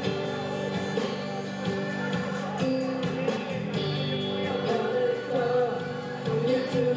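A live band playing, with vocals singing over the instruments.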